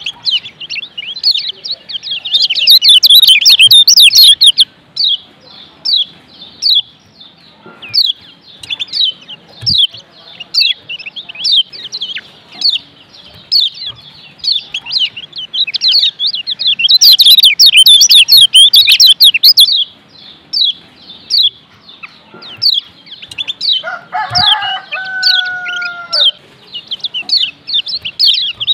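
Kecial kuning (Lombok yellow white-eye) calling in rapid, high chirps, a 'masteran' training recording meant to stir a lazy bird into song. The chirping swells into dense loud runs a couple of seconds in and again past the middle. Near the end a lower, falling call sounds briefly.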